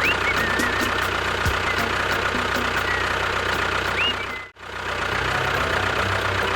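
Steady engine-like running sound, broken by a brief dropout about four and a half seconds in.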